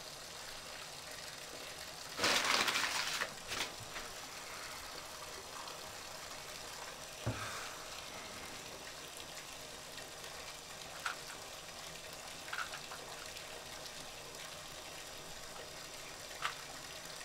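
Bathwater splashing in a short rush about two seconds in, over a steady faint hiss. A few faint clicks follow, as a Rubik's cube is twisted.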